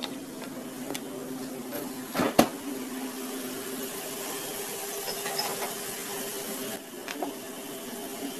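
Steady mechanical hum with a few short metallic knocks of a steel ladle against the pan as the soup is stirred, the loudest two close together a little over two seconds in.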